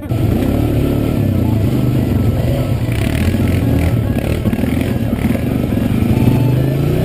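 ATV quad engine running hard and revving, mixed with background music; the engine pitch rises near the end.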